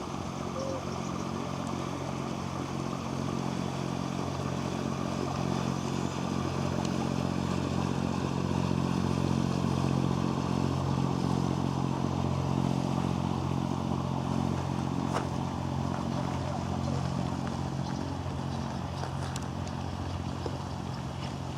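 An engine running steadily at an even pitch, growing louder toward the middle and easing off near the end, with a few light clicks.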